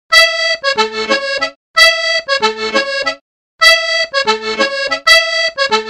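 Background music: a short, bright instrumental phrase played four times over, with brief silent gaps between the repeats.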